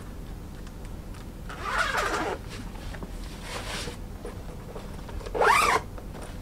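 The long inner side zipper of a patent thigh-high platform boot being unzipped, in rasps: a long one about two seconds in and a fainter one after it. A louder, brief rasp near the end as the boot comes off the leg.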